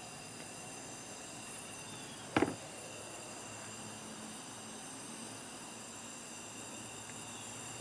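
A single sharp knock about two and a half seconds in, over a faint steady high-pitched hiss.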